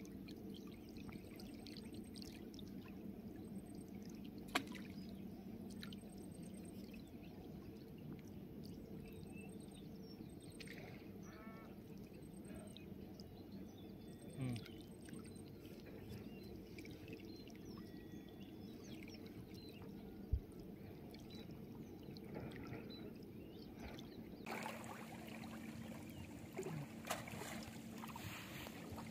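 Faint river water lapping and trickling around a person standing waist-deep, with two short sharp knocks.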